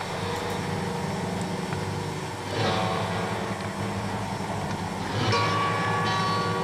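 Background music of held, sustained notes over a steady low drone, swelling twice, about two and a half seconds in and again about five seconds in.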